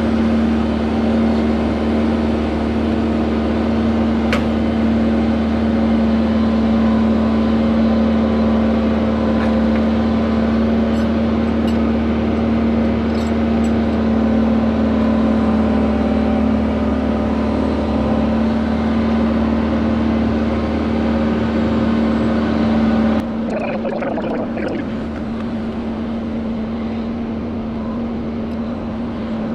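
Hyundai HX85A excavator's diesel engine and hydraulics running steadily, heard from inside the cab, with a steady hum, while it carries a suspended concrete block. About 23 seconds in, the deep rumble drops away and the sound becomes quieter.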